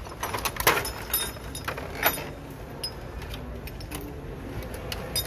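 Clear plastic packaging crinkling and metal gas-burner caps clinking together as they are handled and lifted out of a plastic tray, in a series of irregular sharp rattles.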